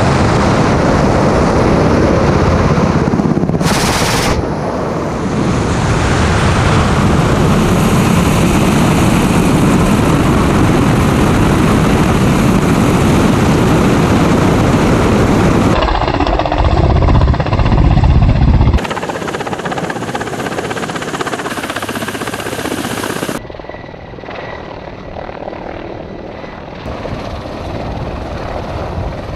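Attack helicopter in flight heard from a camera on its airframe: loud rotor and engine noise mixed with heavy wind rush, with a short sharp crack about four seconds in. After cuts it turns quieter, ending with an Mi-35 helicopter heard passing from the ground.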